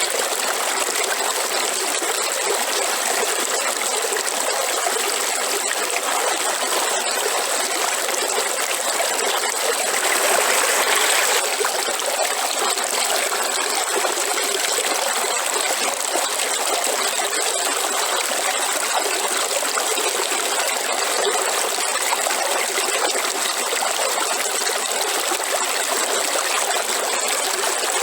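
River water running over rocks, a steady rushing and trickling that swells slightly for a moment about ten seconds in.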